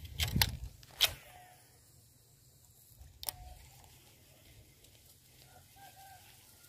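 A few sharp clicks and a brief rustle from a baitcasting reel and rod being handled. There is a cluster just after the start, a louder single click about a second in, and another click around three seconds in.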